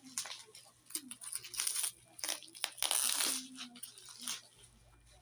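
Packaging rustling, scraping and tearing in irregular bursts as a boxed battery is worked out of its box, loudest through the middle.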